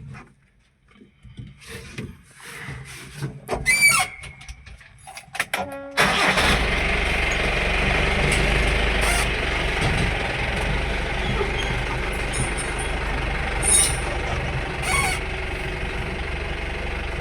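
A jeep's engine being started: a few knocks and clicks, a brief crank, then the engine catches about six seconds in and idles steadily.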